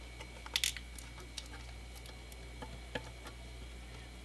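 Small scattered clicks and crackles of fingers pressing and tucking vinyl wrap around the edges of a license plate: a sharp double click about half a second in and another near three seconds. A low steady hum runs underneath.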